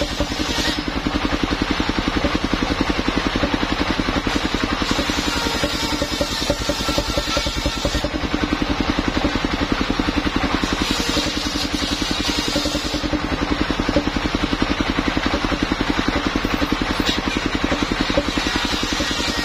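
Portable circular sawmill running: its engine pulses fast and steady while the large circular saw blade spins, with a higher hiss coming and going as boards are pushed through the blade.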